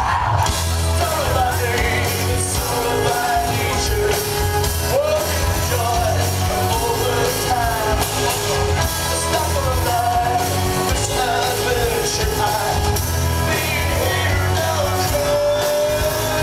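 Rock-style music with a singer: a sung melody over steady bass and drums.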